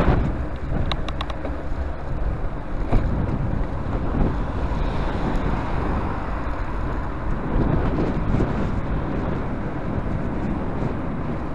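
Wind rushing over a bicycle-mounted camera's microphone while riding, with road traffic mixed in. A short run of sharp clicks sounds about a second in.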